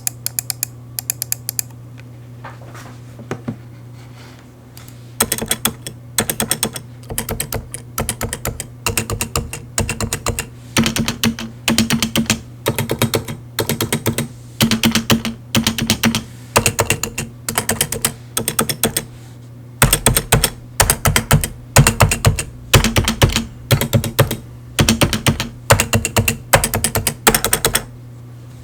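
Keystrokes on a Topre Realforce Hi-pro keyboard with stock 45 g Topre switches and stock stabilizers, in a demo of its stabilized keys. A few scattered presses come first, then about five seconds in the keys are struck in quick clusters of many strokes, with short pauses between clusters.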